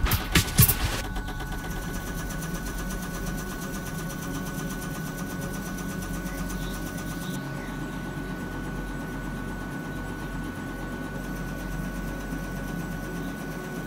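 Bruderer high-speed stamping press line running steadily, giving an even mechanical running noise with a thin constant whine. Partway through, the high hiss drops.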